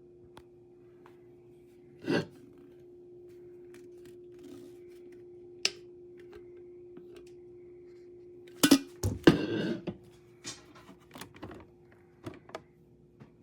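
Hard objects being handled: scattered clicks and knocks, with a louder clatter of hard pieces about nine seconds in, over a steady electrical hum.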